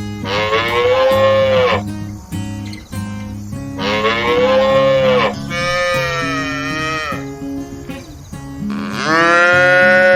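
A cow mooing four times, each moo about a second and a half long and dropping in pitch as it ends, the second and third close together. Strummed acoustic guitar music plays underneath.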